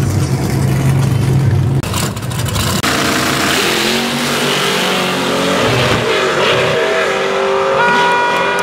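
Race car engines: a loud, steady low rumble for about two seconds, then engines revving and accelerating, their pitch climbing and gliding through the rest.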